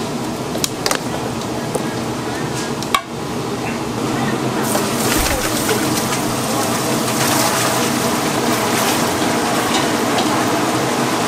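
Chicken deep-frying in a cauldron of hot oil: a steady sizzling hiss with a few sharp utensil clicks in the first seconds. It grows louder and denser after a brief break about three seconds in.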